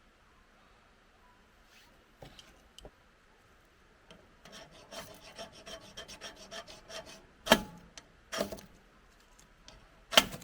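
Ferrocerium fire-starter rod being scraped with a striker. A run of quick light scrapes is followed by three short, much louder strikes, the hard strokes that throw sparks to light a fire.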